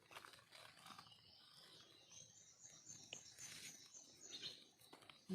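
Near-silent forest with a bird's faint, high twittering: a quick run of short repeated notes about two to four seconds in. Soft rustles and clicks underneath.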